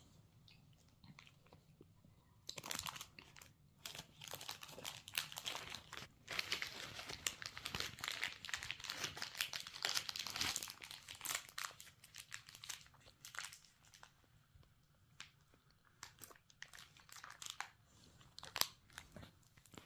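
Chocolate wrapper crinkling and rustling in dense bursts through the first half, then scattered small crackles and crunches.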